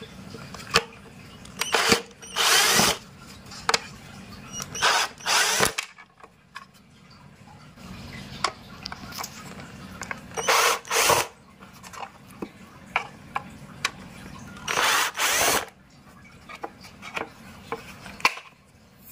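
Cordless drill-driver backing out screws from a plastic car-mirror housing, running in four short bursts of about half a second to a second each, with small clicks of handling between runs.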